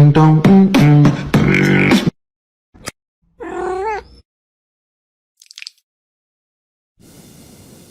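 About two seconds of beatbox-style vocal music with a beat that cuts off abruptly, then a single cat meow about three and a half seconds in. A faint hiss comes in near the end.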